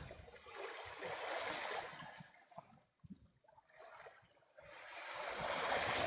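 Small sea waves washing quietly onto the shore, two soft swells of surf noise: one about a second in, and another building near the end.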